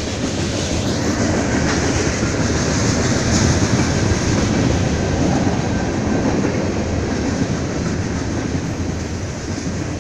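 Freight cars rolling past on the rails: a steady rumble of steel wheels on track that swells slightly in the middle.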